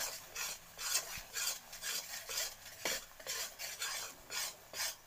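Spatula scraping and stirring a thick mixture of biscuit crumbs, ghee and sugar syrup around a metal kadhai as it cooks, in quick repeated strokes of about three a second.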